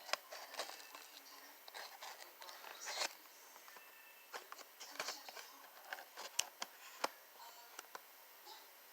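Toy packaging being handled and opened: irregular crinkling and rustling with sharp clicks and snaps, as an action figure is taken out of its box.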